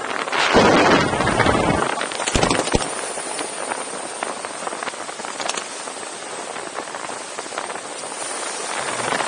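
Wind rushing over the camera's microphone under an open parachute canopy, with scattered brief crackles and a louder gust about a second in.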